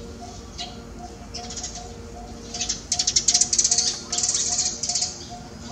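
Loud, high-pitched, rapidly pulsed squealing calls from an animal, starting about two and a half seconds in and lasting about two and a half seconds. Soft background music with a steady beat plays underneath.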